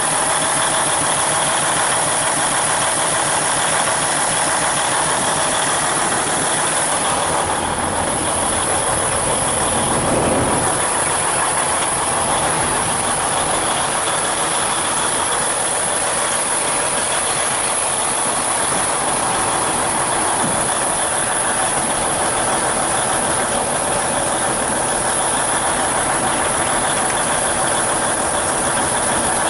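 Semi truck's diesel engine idling steadily, heard with the hood open.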